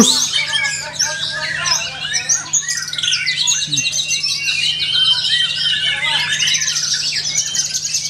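White-rumped shama (murai batu) singing a fast, unbroken stream of varied notes and rapid trills, sharp and piercing, packed with mimicked calls of other birds.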